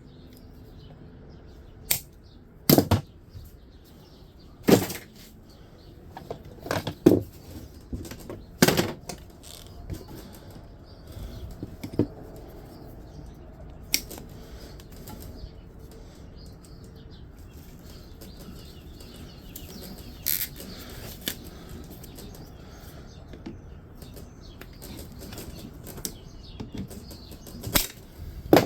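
Scattered sharp metal clanks and knocks as parts and hand tools are handled while taking apart a dehumidifier. The knocks come every second or two at first, fall away through a quieter middle stretch, and return a few times near the end.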